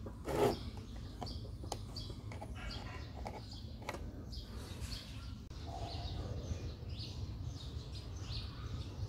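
Clicks and knocks of a small cable plug being handled and pushed into a charger's plastic socket, the loudest about half a second in. Birds chirp in the background, mostly in the second half.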